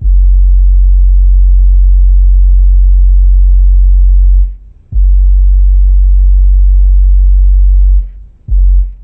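Stealth AL-250B 25 cm subwoofer in an Axton CAB258 bass-reflex box, heard inside a car, playing a loud, steady deep bass sine test tone at about 123 dB SPL. The tone cuts off about halfway through and starts again half a second later, stops again near the end, and comes back once briefly.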